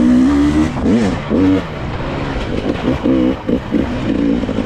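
GasGas dirt bike engine running on tight single track, its pitch rising and falling repeatedly as the throttle is worked on and off.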